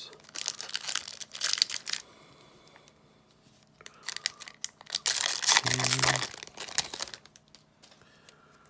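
Foil trading-card booster pack wrapper crinkling and being torn open, in two bouts of crackling, the second and longer one starting about four seconds in.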